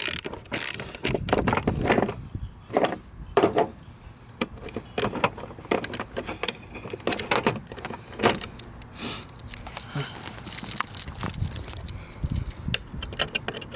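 Irregular light clicks, taps and metallic rattles of small hardware being handled and fitted by hand.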